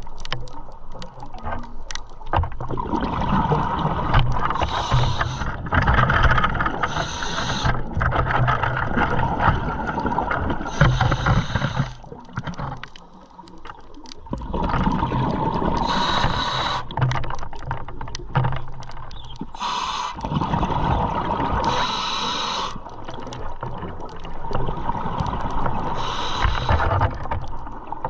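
A motorboat running under way, its engine giving a steady low hum beneath water rushing past the hull, with a splash or surge of spray every few seconds. The sound dips briefly about halfway through.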